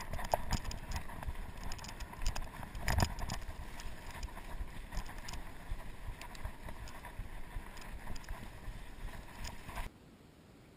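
Norco Sasquatch fat bike rolling fast down a dirt trail: wind on the microphone and tyre rumble, with scattered clicks and rattles from the bike over bumps, the loudest knock about three seconds in. The sound cuts off suddenly near the end to near silence.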